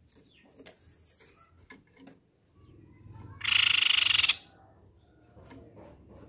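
Crescent-chested babbler (tepus pipi-perak) giving one loud, fast rattling trill of about a second, a little past halfway through, its call. A few light clicks and taps come before it.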